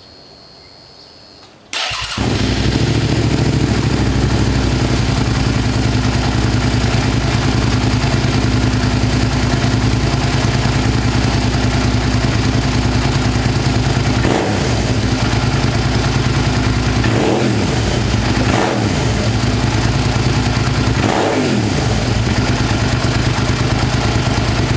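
Suzuki SV650S V-twin motorcycle engine started through its exhaust about two seconds in, then idling steadily, with a few short throttle blips in the second half.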